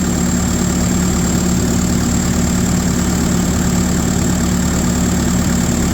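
Diesel engine of a Case construction machine idling steadily with its air-conditioning compressor running, giving an even, unchanging hum.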